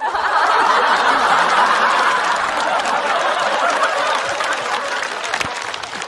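Studio audience laughing and applauding, breaking out suddenly right after a punchline and slowly dying down near the end.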